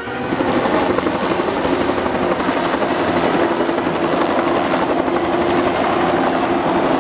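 Bell OH-58 Kiowa military helicopter flying low by, its main rotor beating rapidly over a steady engine drone. The sound comes in suddenly at the start and stays loud and even.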